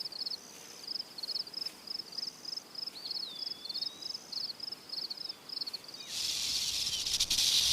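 Crickets chirping in a steady rhythm, about two chirps a second. About six seconds in, a rattlesnake starts shaking its tail rattle, a loud continuous buzz that is the snake's warning signal.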